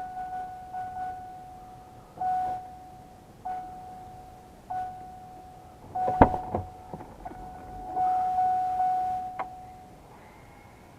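GMC Envoy's warning chime ringing over and over, one tone repeated about once every second and a quarter, which the owner puts down to the doors being open. There is a sharp click about six seconds in, and the chime stops a little before the end.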